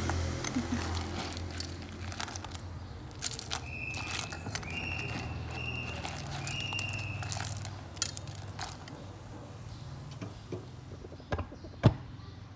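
Metal ladle stirring and scooping clams in a pot of water, clam shells clicking together and the ladle knocking against the pot, with one sharper knock near the end. A short high steady tone sounds four times in the middle.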